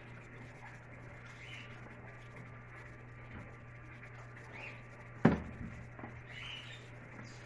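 Hands working cord on the wooden trigger stick of a wooden box trap while tying a knot: faint handling sounds, with one sharp knock about five seconds in, over a steady low hum.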